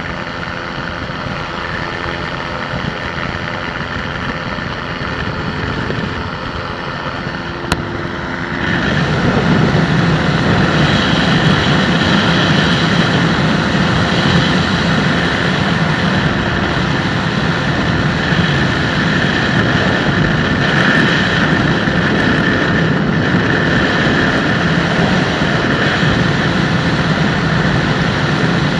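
Microlight aircraft engine and propeller running steadily in flight. A sharp click comes a little before nine seconds in, and then the sound suddenly grows louder and fuller and stays that way.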